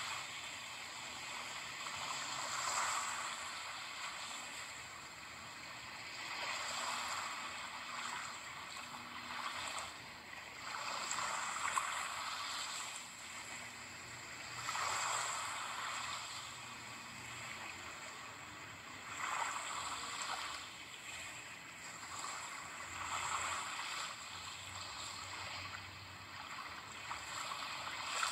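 Ocean waves: a hiss of surf that swells and fades about every four seconds.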